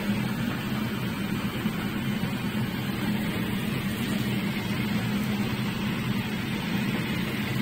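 Marinated fish steaks sizzling steadily as they fry in oil in a pan, with a constant low hum underneath.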